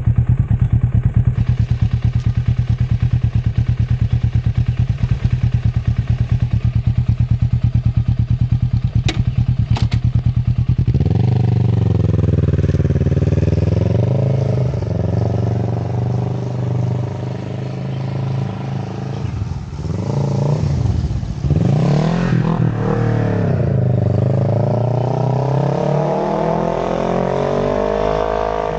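Kawasaki Z650's parallel-twin engine through an Akrapovic exhaust, idling with a fast even pulse. About eleven seconds in it pulls away, the revs rising and falling several times through the gears as the bike rides off.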